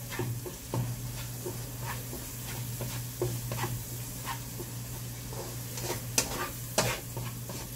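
A metal utensil scraping and clicking against a frying pan while stirring tuna sisig with beaten egg, the egg mixed in before it sets, over a steady sizzle and a low hum. Two louder clacks come about 6 seconds in.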